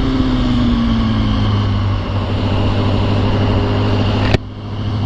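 A 2005 Yamaha R1's inline-four engine, with an Akrapovic exhaust, running at a steady highway cruise with wind rush on the helmet microphone. A sharp click about four seconds in, after which the sound is briefly quieter.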